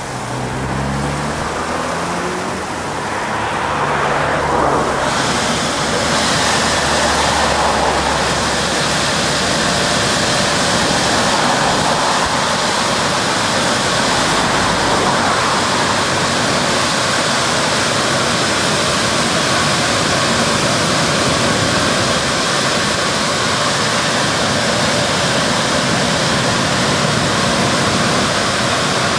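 Stargate S111 automatic rollover car wash gantry running over a car. Low motor tones come first, then about five seconds in a loud, steady rushing hiss starts up and holds.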